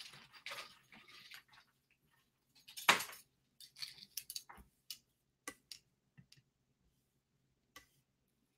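Metal chain necklace clinking and rattling in the hands, in scattered short clicks; the loudest comes about three seconds in, then a run of lighter clinks.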